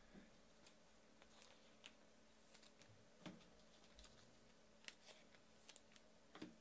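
Near silence with faint, irregular clicks and taps of trading cards being handled and set down on a table.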